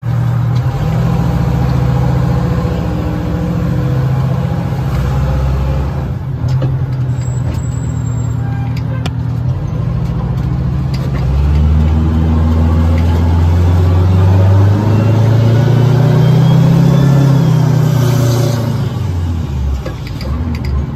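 Fire engine's diesel engine running, heard from inside the cab as the truck pulls out and drives off. The engine note rises as it accelerates from about eleven seconds in and drops again near the end.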